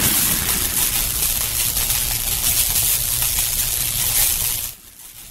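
Logo-intro sound effect: a loud, steady rushing noise with a low hum underneath, the tail of an impact hit, cutting off abruptly near the end and leaving only a faint hiss.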